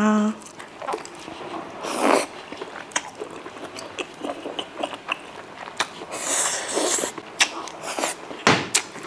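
A person eating close to the microphone: the tail of a loud 'ah!' just at the start, then chewing a mouthful of rice with spicy malatang, with many small wet mouth clicks and smacks and two longer hissing breaths, about two seconds in and again near seven seconds.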